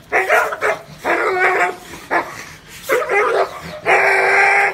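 Dog barking: four short barks over the first three and a half seconds, then one longer, held call near the end.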